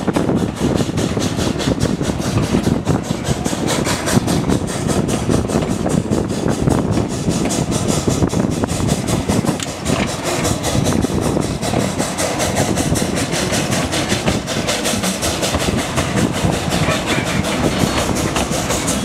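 Narrow-gauge railway carriage running on the track behind a steam locomotive, heard from inside the open-sided coach: a steady rumble and rattle of wheels on rails and the coach body.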